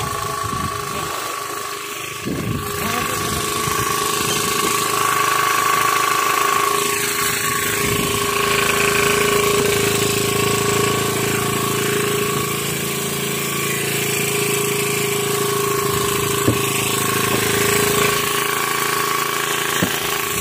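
Small engine aboard an outrigger fishing boat, running steadily.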